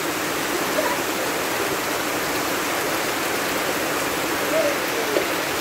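Heavy rain falling steadily, with runoff pouring off the edge of a corrugated metal roof onto the wet ground.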